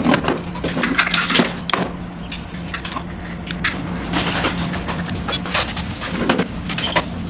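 Scattered knocks and clicks of handling a plastic bucket and fittings, over a steady low hum.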